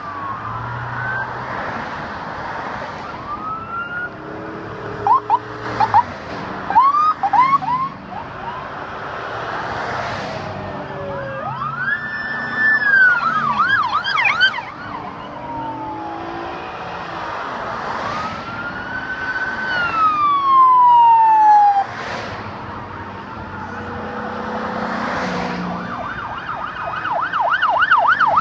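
Police car sirens sounding as a column of cruisers passes, overlapping one another: slow wails that rise and fall, short whooping chirps, and a fast yelp starting near the end. Road noise from the passing cars' tyres and engines runs underneath.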